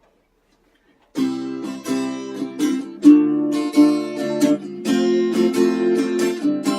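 Guitar strumming chords in a steady rhythm, starting suddenly about a second in: the opening of a song.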